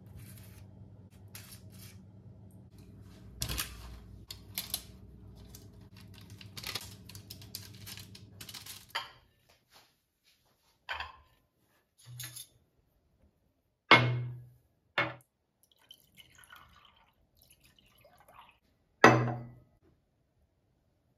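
Ceramic tableware set down on a stone-topped table: several separate sharp clinks and knocks, the loudest two with a short ringing tail. Before them, a steady low hum with light taps and scrapes.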